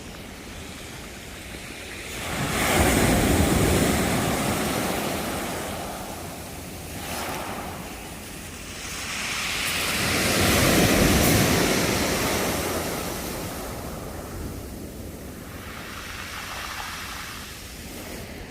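Sea waves breaking and washing up on the shore. Two big surges come about two and a half seconds and ten seconds in, with smaller ones between, and wind on the microphone underneath.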